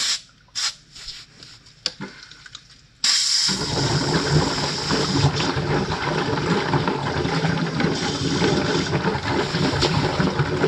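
Air and washer fluid rushing out of a pressurised tractor tire through a manifold's opened release valve and back down the return hose. It starts suddenly about three seconds in as a hiss, then becomes a steady, watery rush with a low churning underneath. Before that there are only a few faint clicks.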